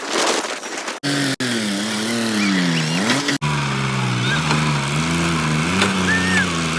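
Heavy diesel machine engine running, heard in short clips cut together: a noisy stretch first, then about a second in an engine whose pitch rises and falls as it revs, and from about a third of the way an engine running fairly steadily with small changes of pitch. Faint high chirps sound over it.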